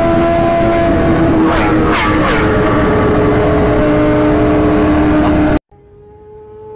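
Sport motorcycle engine held at high, steady revs at speed, heard from on board with heavy wind noise, its note shifting briefly about two seconds in. It cuts off suddenly near the end, replaced by a distant motorcycle approaching, its engine note slowly rising in pitch and growing louder.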